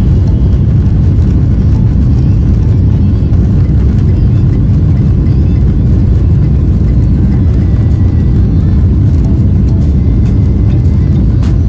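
Jet airliner cabin noise: a loud, steady low rumble of engines and airflow heard from a passenger seat.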